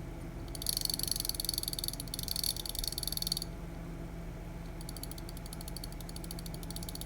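Gear train of a battery wall-clock movement being turned by hand, giving a fast, rattling run of ratchet-like clicks. A louder run lasts about three seconds, and a fainter one starts about five seconds in. The gears are being worked to see how freely they move in a movement that will not run.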